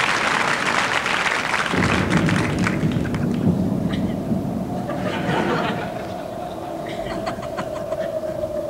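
Live theatre audience applauding and laughing, the claps thinning out over the first few seconds. A steady held tone comes in about halfway and keeps sounding under the crowd.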